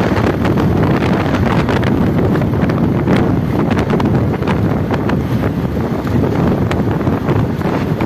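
Loud, steady wind buffeting on the microphone from travelling on a moving road vehicle, mixed with the road and engine noise of passing traffic; no horn is sounding.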